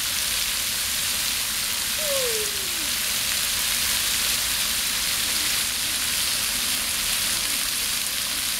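Splash-pad water jets and a fire-hydrant sprayer spraying and splashing onto the wet pad: a steady hiss of falling water.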